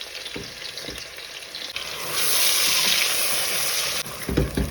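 Onion frying in hot oil in a pot, a steady sizzle that jumps louder about two seconds in, then a few low knocks near the end.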